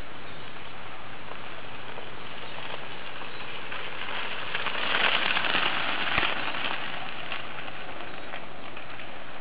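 Tyres of a wooden three-wheeled recumbent trike crackling over a gravel driveway, growing loud as the trike rolls close past about halfway through and then fading, with one sharp knock about six seconds in, over a steady hiss.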